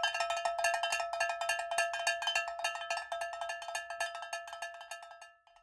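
A bell-like metal percussion instrument struck in a fast, even roll, many strikes a second, over a steady ringing pitch. It starts suddenly and fades out near the end.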